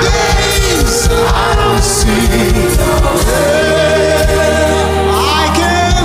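Gospel worship song: a choir and lead singers sing over instrumental backing. The beat drops out about halfway, leaving a held chord under the voices.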